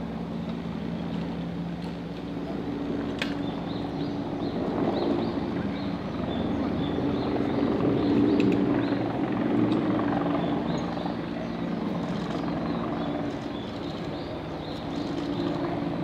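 A steady low engine drone that grows louder around the middle and then eases off, with one sharp click about three seconds in.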